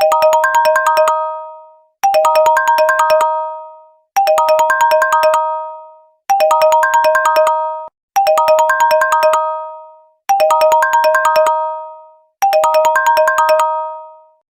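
A mobile phone ringtone: a short, quick melody of about eight bright, bell-like notes, played seven times over at roughly two-second intervals, each phrase ringing out and fading before the next.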